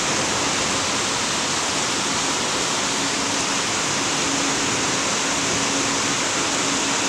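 Steady rushing of running water, with a faint low hum underneath.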